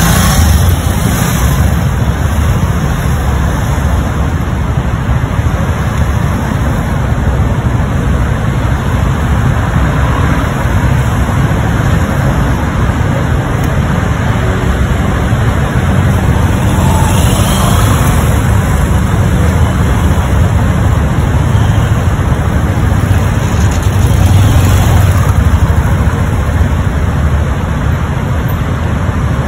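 Steady road traffic noise with a low rumble of idling engines.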